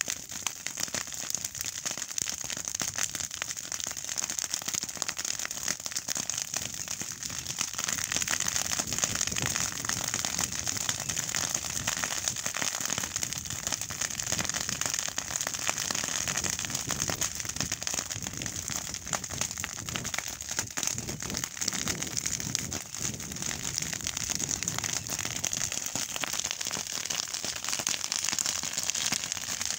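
A clump of green grass burning, crackling steadily with many small snaps.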